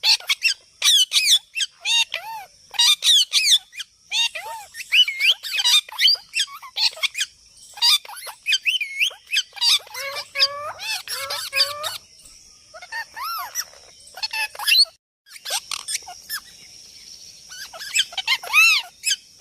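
A parrot calling in a long run of short squawks, chirps and whistled notes, some rising and falling in pitch, with a few lower, chattering calls about halfway through.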